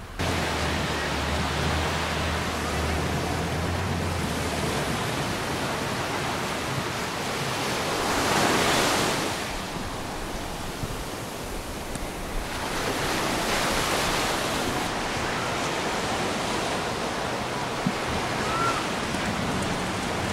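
Ocean surf: a steady rush of waves washing onto a sandy beach, swelling louder about eight seconds in and again around thirteen seconds, with a low hum underneath for the first few seconds.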